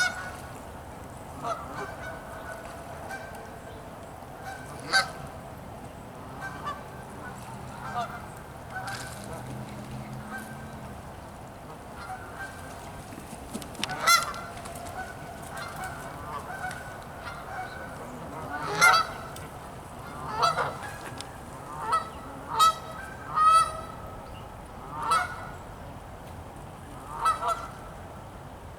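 Canada geese honking: scattered short honks, louder and coming closer together in the second half.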